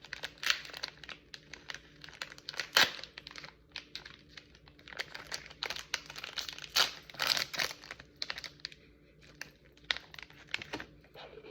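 Snack packaging crinkling and rustling as it is handled, in fits and starts, with louder crackles about three seconds in and again around seven seconds.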